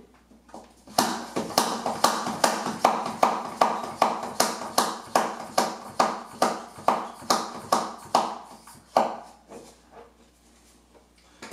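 Hand plunger pump on the lid of a vacuum food container, pumped in about twenty quick strokes, roughly two and a half a second, each a short hiss of air drawn out of the container. The strokes stop about nine seconds in, after a couple of weaker ones.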